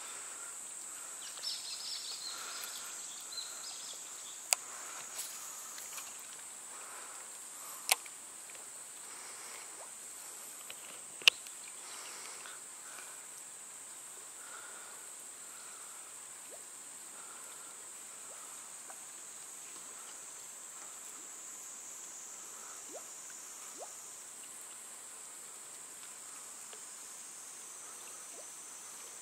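Steady high-pitched drone of insects, with three sharp clicks in the first dozen seconds.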